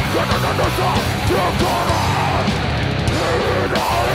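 Heavy punk rock band playing live: distorted electric guitars, bass and drums, with the singer shouting the vocals into the microphone.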